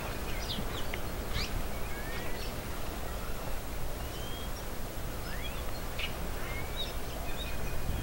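A flock of small birds, mostly red-cowled cardinals, gives scattered short chirps and brief whistled notes that rise or fall, over a steady low rumble.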